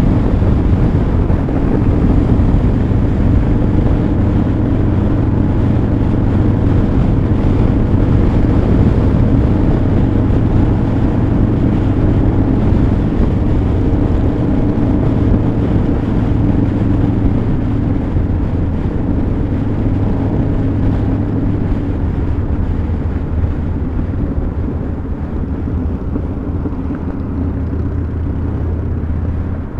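Harley-Davidson Dyna Super Glide Custom's air-cooled V-twin running steadily at highway cruising speed, with wind rushing over the microphone. It grows a little quieter in the last few seconds.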